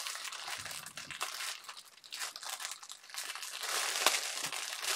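Clear plastic packaging bag crinkling as it is handled and worked open by hand. The crinkling eases off about two seconds in, then picks up again toward the end.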